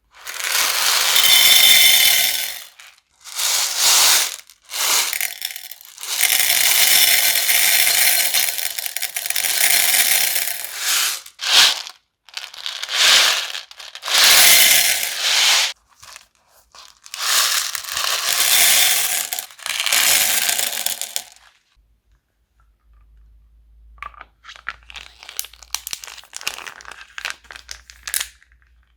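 Crunchy slime being worked by hand, giving long stretches of loud crackling and crinkling noise, several in a row. After a short near-silent pause, quieter scattered crackles follow near the end.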